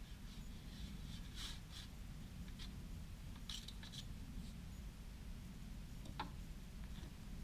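Faint handling of a PVC pipe: a few short scratchy scrapes about a second and a half in and again around three and a half seconds, then a sharp click about six seconds in, over a low steady rumble.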